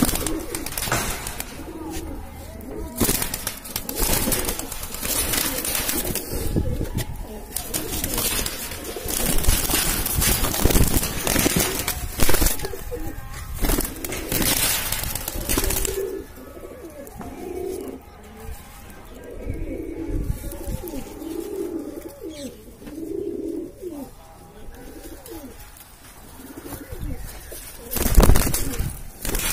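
Several Indian high-flyer pigeons cooing, with repeated low coos throughout. Bursts of rustling noise come and go, the loudest near the end.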